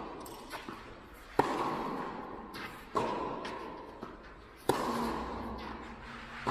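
Tennis balls struck by rackets in a rally: three sharp pops about a second and a half apart, each ringing out in the echo of a large metal-roofed indoor hall, with fainter ball bounces between them.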